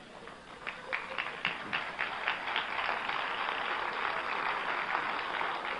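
Lecture audience applauding: scattered claps about half a second in, quickly building into steady applause that starts to fade near the end.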